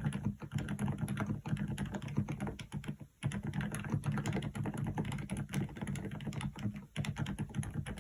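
Fast typing on a Dareu EK106 PRO full-size keyboard with silent switches: a dense, uneven run of soft keystrokes with two brief pauses, one about three seconds in and one near the end.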